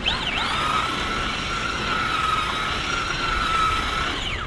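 Traxxas Slash electric RC truck's motor and drivetrain whining: the pitch rises quickly as it accelerates, holds a steady high whine at speed, then drops away near the end as it slows.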